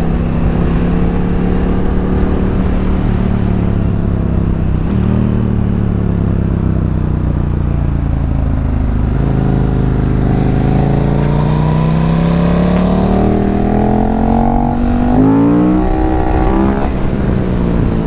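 Big sport motorcycle under way with wind rush on the rider's microphone. The engine pitch dips briefly about five seconds in. It then climbs steadily from about nine seconds, shoots up sharply near fifteen seconds and drops back.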